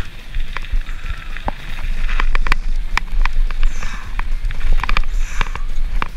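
Mountain bike riding over a rough trail: wind rumbling on the microphone, tyre noise and many sharp clicks and rattles from the bike over bumps.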